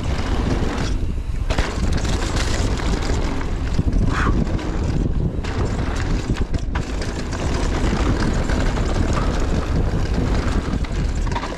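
Wind buffeting the microphone and tyres rumbling over a dirt trail as a mountain bike descends at speed. The rush thins briefly a few times, around one, five and nearly seven seconds in.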